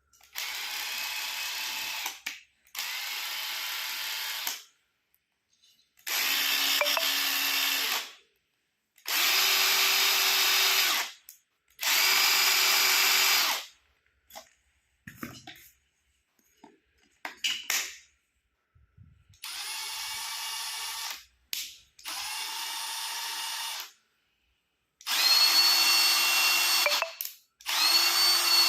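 Milwaukee cordless impact driver run in about ten bursts of roughly two seconds each, with short pauses between them. The later runs are louder than the first two, and a few small clicks and knocks fill one longer pause.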